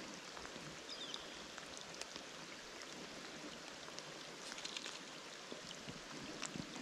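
Shallow freestone trout stream running over a gravel bottom: a faint, steady rush of moving water with scattered small ticks and trickles.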